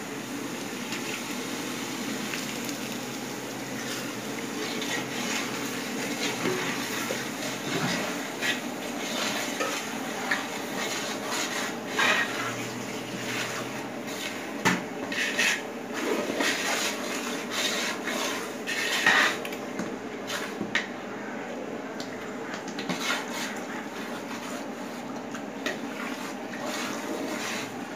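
Long steel spoon stirring and scraping through frying masala in a large aluminium pot, with sharp clinks against the pot now and then over a steady hiss.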